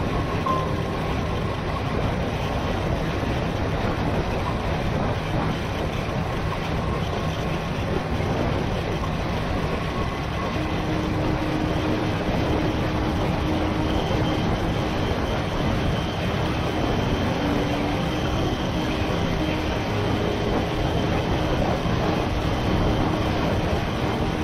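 Ducati Monster 600 motorcycle cruising at a steady speed: its air-cooled V-twin engine running under wind and road noise, with no gear changes or revving.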